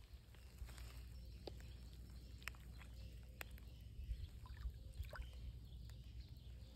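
Faint water sloshing and small splashes as a carp is let out of a landing net into shallow water. A steady low rumble and scattered light ticks run underneath.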